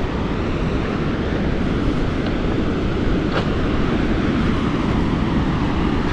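Steady rushing noise of ocean surf breaking, mixed with wind buffeting the microphone.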